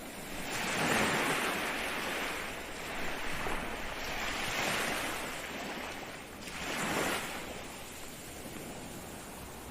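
Ocean waves breaking and washing on the shore, the surf swelling and easing in several surges, the strongest about a second in and another about seven seconds in.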